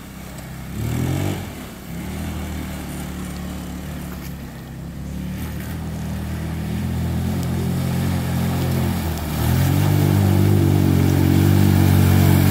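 150cc go-kart engine running under load, with a brief rev about a second in. It gets louder and stronger from about nine and a half seconds as the kart pushes through deep mud.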